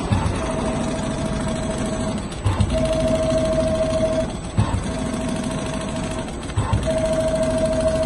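Automatic rotating-head CNC sewing machine stitching leather: it runs with a steady whine and rapid stitching in spells of about two seconds, stopping briefly with a knock between spells, about four times.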